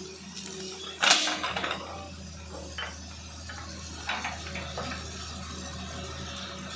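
Hitachi excavator's engine running steadily, with a loud sharp knock about a second in and a few fainter knocks later.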